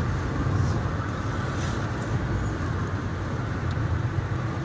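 Steady road and engine rumble heard from inside a moving car's cabin.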